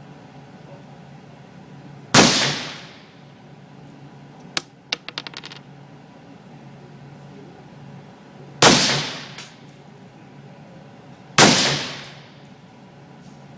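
Three separate suppressed shots from an AR-15 rifle with a SilencerCo Specwar suppressor, each a sharp crack with about a second of tail. Between the first and second shots comes a quick run of small metallic clicks.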